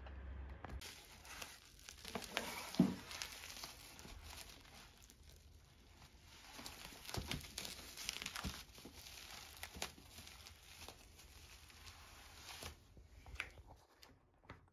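Product packaging being unboxed by hand: crinkling and tearing of wrapping, with scattered small taps and one louder knock about three seconds in.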